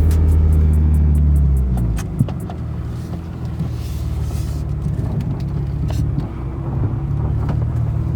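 BMW E36 320i's M52 2.0-litre straight-six running just after a start: it holds a higher, louder idle for about two seconds, then settles to a lower, steady idle. Light clicks sound now and then over it.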